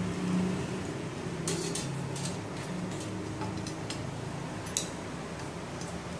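Light metallic clicks and clinks as the metal parts of a kerosene pressure lantern are handled and fitted together: a handful of separate sharp ticks, the sharpest about five seconds in.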